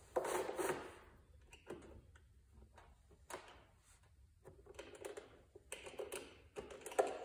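Hand work on a riding mower's engine: a short scrape near the start, then scattered light clicks and taps of a hand tool and small metal parts as a screw is worked.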